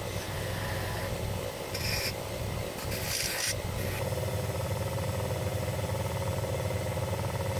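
Small bench lathe running with a steady motor hum while a green abrasive sheet is pressed against a spinning wooden part, giving a rasping rub, with brief louder scraping about two and three seconds in.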